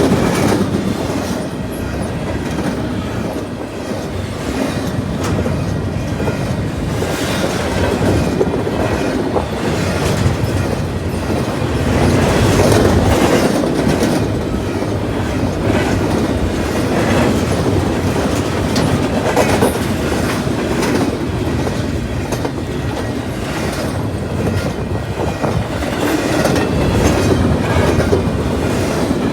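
Freight train cars rolling past, a steady rumble of wheels on rail with repeated clacks as the wheels cross rail joints.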